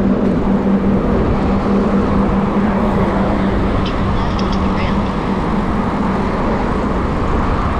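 Steady road traffic noise heard from a bicycle riding along the street, with a low engine hum from a nearby vehicle in the first second.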